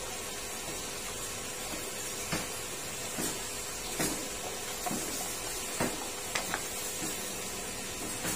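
Crab pieces being tossed in tapioca flour in a stainless steel bowl: a few light knocks and clinks of shell against the metal over a steady background hiss.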